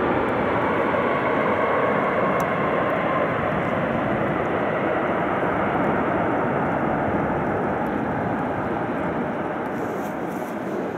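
Jet airliner's engines heard across the airfield as the plane moves along the runway: a steady rushing noise with a faint whine that fades out in the first few seconds, the whole slowly growing quieter as the jet draws away.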